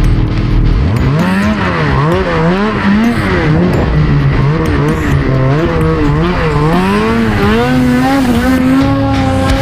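Snowmobile engine revving up and down in quick swings as the throttle is worked, then holding a steadier high pitch near the end.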